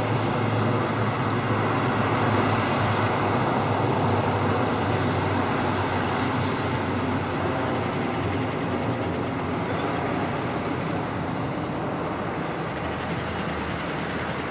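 Steady rumbling noise of a train approaching in the distance, with short high chirps every second or two.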